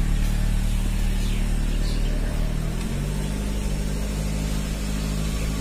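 Motor vehicle engine running steadily with a low hum, its pitch shifting slightly about three seconds in.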